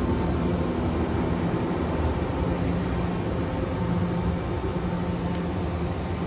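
Steady low machine hum with an even hiss over it, as of a running machining centre's motors and pumps, holding a constant level with no knocks or clicks.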